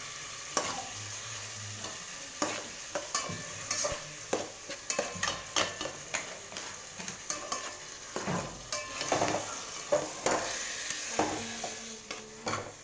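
Chopped onions, tomatoes and green chillies sizzling in hot oil in an aluminium pot, stirred with a metal spatula that scrapes and clicks against the pot at irregular intervals.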